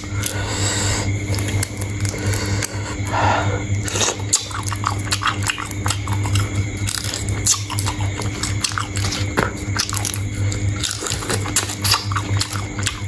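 A person biting and chewing shrimp close to the microphone, with dense irregular crunching and crackling of shell. A steady low hum runs underneath.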